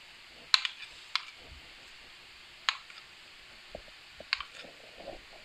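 Metal cutlery clinking against a bowl and tapping as a thick sauce is scooped and dolloped onto bread slices: a handful of sharp, irregular clicks, the loudest about half a second in.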